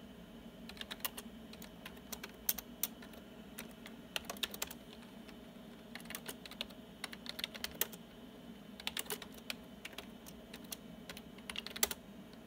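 Typing on a PC keyboard: short bursts of keystrokes as DOS commands are entered, with pauses of about a second between bursts.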